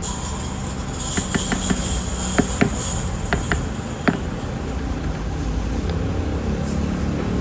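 Light hammer taps on the metal fitting of a car air-conditioning compressor, about ten sharp knocks spread over the first half, over a steady low background noise.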